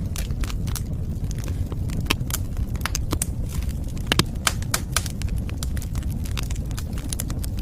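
Wood fire burning with a steady low rumble and irregular sharp crackles and pops.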